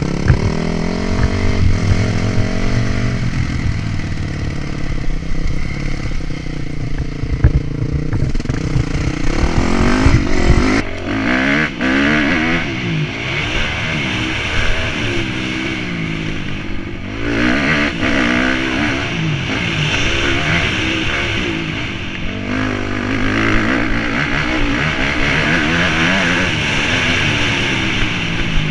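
Honda CRF250 motocross bike's single-cylinder four-stroke engine under way, heard from the rider's camera. It runs at low revs at first, then from about ten seconds in revs up and down over and over as the bike accelerates and shifts gear.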